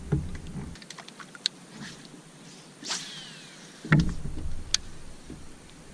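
Handling noise from fishing gear in a small boat: scattered clicks and two low knocks, with a short swish and a falling whine about three seconds in, typical of a rod being cast.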